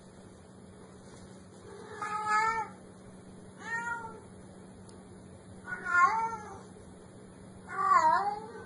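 Domestic cat meowing four times, short calls each under a second, about two seconds apart.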